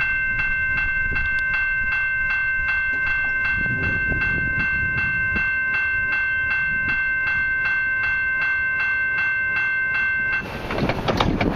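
Level crossing warning bell ringing steadily at about three strokes a second, over a low rumble. The bell stops about ten seconds in and gives way to a crackling noise.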